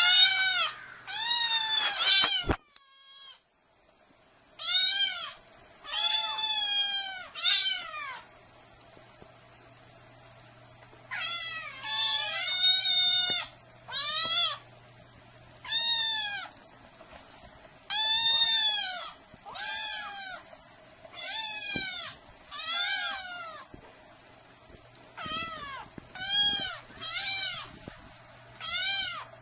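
Kittens mewing over and over in high, thin mews, each one rising and then falling in pitch, with a short pause about three seconds in.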